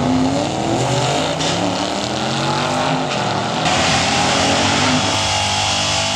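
Drag-racing cars accelerating hard down the strip, engine pitch climbing and dropping back with each gear change. About three and a half seconds in the sound changes abruptly to a steadier engine note.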